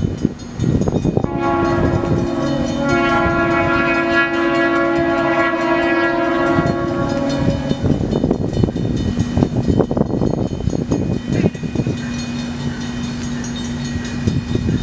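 Locomotive air horn sounding one long chord, several notes at once, for about six seconds starting just over a second in, then cutting off. The passing train's wheels then clatter and click over the rails for the rest of the time.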